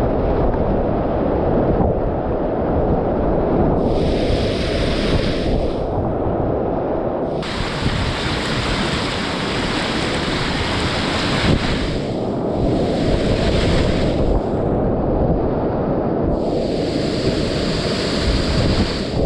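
Whitewater rushing in a river rapid, heard close up, with a heavy rumble on the microphone. A brighter splashing hiss swells up four times and fades again.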